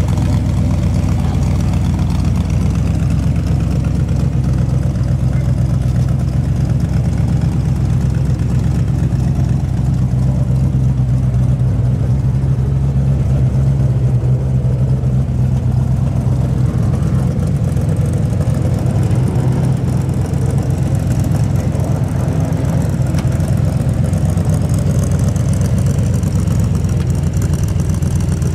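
Hot rod V8 idling steadily through short twin side-exit exhaust pipes.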